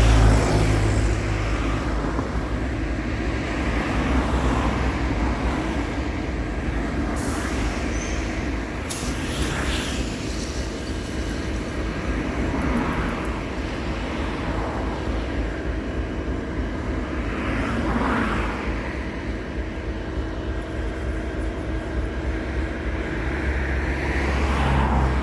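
EMD 16-710-G3 turbocharged two-stroke V16 diesel of an SD70LC locomotive idling steadily, with a heavier low rumble at the start and again near the end.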